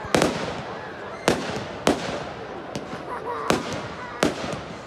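Aerial fireworks bursting: five loud bangs at uneven intervals, with quieter pops between them.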